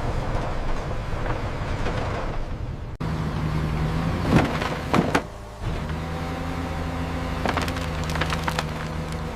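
Industrial wood chipper running steadily, with sharp cracks of wood splintering: two loud cracks a little past the middle and a quick run of smaller cracks near the end. The running sound breaks off abruptly about three seconds in and picks up again.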